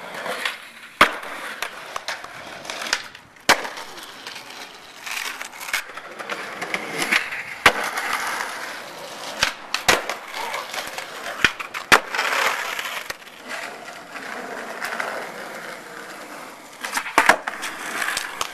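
Skateboard wheels rolling on concrete and asphalt, broken by sharp clacks of boards popping and landing, several times over.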